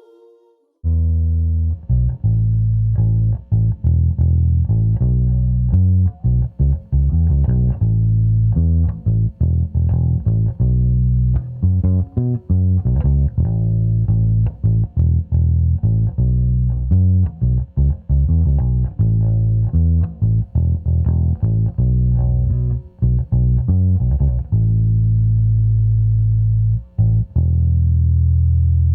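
Bass guitar playing a plucked line of low notes, starting about a second in and ending on a long held note.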